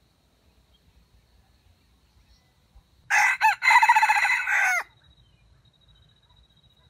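A junglefowl rooster crowing once with a stuttering voice: two short broken notes and then one long drawn-out note, about three seconds in.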